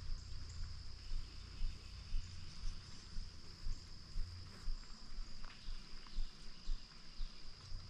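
Insects droning in one steady high-pitched chorus, under low thuds that come about twice a second throughout.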